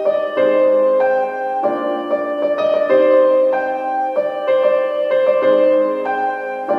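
Instrumental background music: a melody of held notes over sustained chords, the notes changing every half second to a second.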